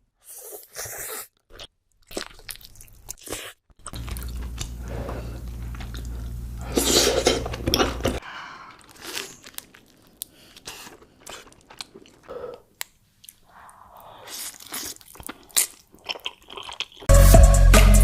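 Close-miked mukbang eating sounds: crisp crunching bites and chewing, in short irregular clicks and crackles. Loud background music comes in about a second before the end.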